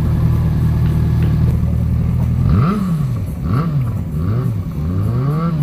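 Sport motorcycle engine running at a steady speed, then revved in about four quick blips, the pitch rising and falling each time, over the last three seconds.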